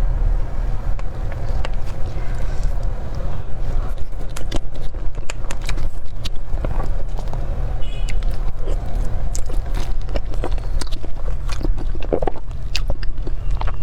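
A person biting and chewing cream cake, with many sharp crackles and clicks, over a steady low rumble.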